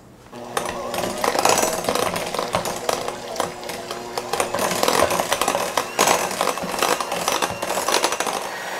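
Electric hand mixer starting up just after the start and running steadily, its beaters churning through a thick mixture of cream cheese, butter and mashed strawberries in a glass bowl, with a constant hum and a busy, clattering rattle.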